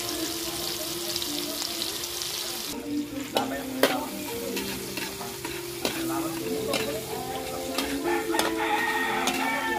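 Food frying in oil in a metal wok, a steady high sizzle that stops about three seconds in. After that, a metal spatula stirs and scrapes in the wok with sharp clicks of metal on metal.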